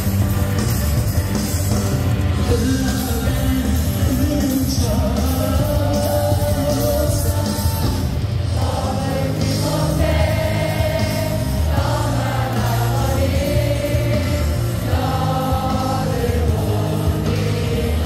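A baseball cheer song played loud over stadium speakers with a heavy beat, a large crowd singing the melody along in unison.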